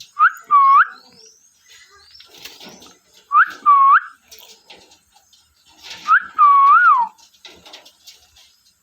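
Pet parrot giving three loud whistled calls about three seconds apart, each a quick two- or three-note whistle that swoops up and dips, with faint chirps between them.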